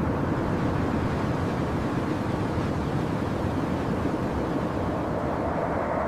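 A steady, even rushing rumble, heaviest in the low range, with no rhythm or pitch.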